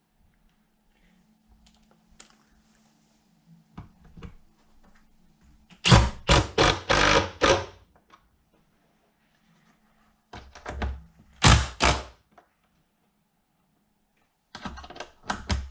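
Bursts of hard knocks and clatter from saddlebag latch parts and tools being handled on a workbench: a quick run of several knocks about six seconds in, another around eleven seconds, and more near the end, over a faint steady hum.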